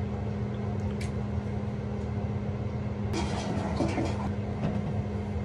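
Steady low machine hum with a single click about a second in and a short stretch of rustling about three seconds in.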